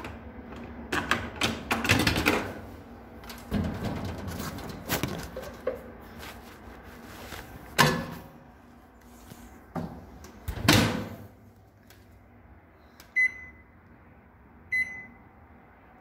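A series of knocks and clunks, the loudest about eight and eleven seconds in, followed by two short, high electronic beeps from a microwave oven's keypad as the cooking time is entered.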